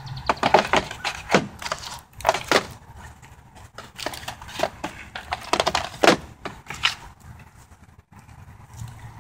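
Board game components handled in the box's plastic insert tray: an irregular run of sharp clicks, knocks and crinkles from a plastic CD jewel case and shrink-wrapped card decks being lifted out and set down. It dies away over the last two seconds or so.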